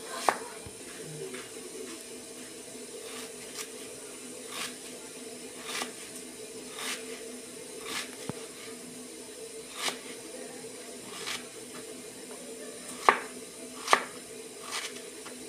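Knife cutting fresh ginger, each stroke a sharp knock, irregular at about one a second, the two loudest near the end, over a steady low hum.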